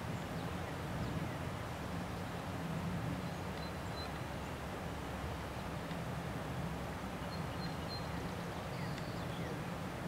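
Steady low outdoor background rumble with a faint hiss, the kind of ambient noise heard at the edge of a pond. Two faint high peeps come about four and eight seconds in.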